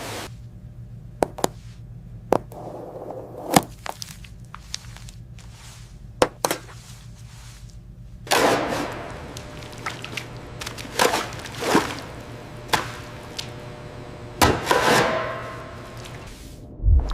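Irregular sharp knocks and chopping thuds, mixed with several longer rasping sounds, over a steady low hum.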